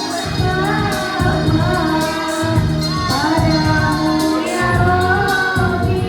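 Teachers' choir singing a song, voices carrying a melody over sustained low accompaniment notes that change every second or so.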